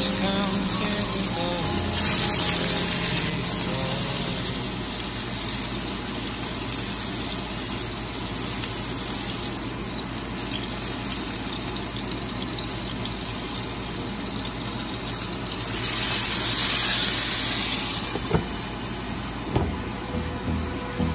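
Food sizzling in a hot frying pan, a steady hiss that surges about two seconds in and again near the end, with background music.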